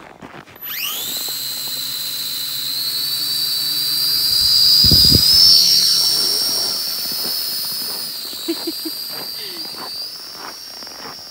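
Small quadcopter drone's motors and propellers spinning up and flying: a high whine that rises sharply about half a second in, then holds, loudest about five seconds in and easing afterwards. A brief low rumble comes about five seconds in.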